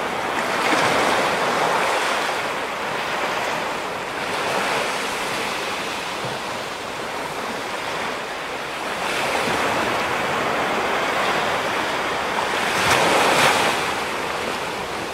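Sea surf washing onto a sandy beach, swelling and easing every few seconds as waves break, the biggest wave about thirteen seconds in.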